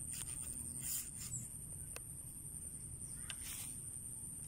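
Hands breaking and peeling open a ripe dragon fruit: a few small sharp cracks, then a short rustling tear about three and a half seconds in. A steady high insect trill runs underneath.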